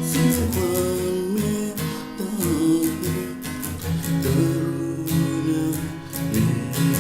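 Instrumental break in a song: strummed acoustic guitar with a steady beat and a gliding melody line.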